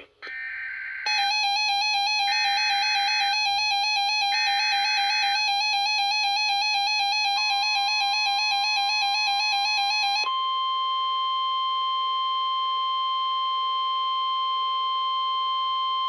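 NOAA Weather Radio receiving a Required Weekly Test: three short warbling SAME data bursts, with the radio's own rapidly pulsing alert beep starting about a second in. About seven seconds in the steady 1050 Hz warning tone begins; the beeping stops near ten seconds, leaving the tone alone.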